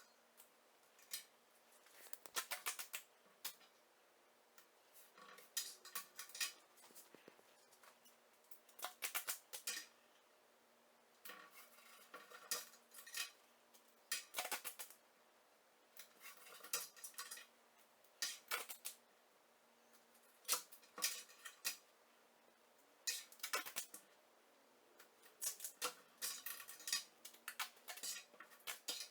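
Short clusters of clicks and rattles every second or two, from small objects and tools being handled and set down, over a faint steady hum.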